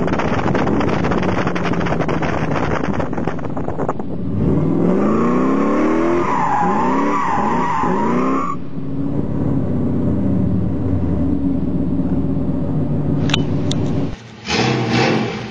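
V8 car doing a burnout: the engine revs hard while the spinning rear tyres squeal, the revs swinging up and down for a few seconds in the middle. It then settles to a steadier, lower run before a sudden brief drop and another surge near the end.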